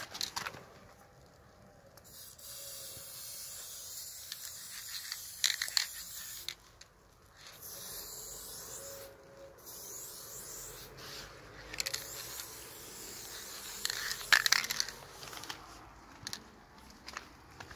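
Aerosol spray-paint can hissing in several long bursts of a few seconds each with short breaks, as paint is sprayed onto a rough wall. Sharp clicks and knocks come between the bursts, the loudest about two-thirds of the way through.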